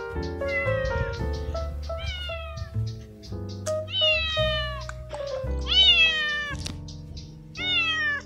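Young stray tabby tomcat meowing repeatedly: about five drawn-out meows, each falling in pitch, the loudest about six seconds in. Background music with held keyboard notes plays under them.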